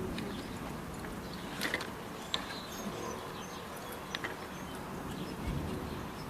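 Outdoor ambience ahead of a thunderstorm: a steady low hiss with a few faint, short bird chirps and light ticks scattered through it.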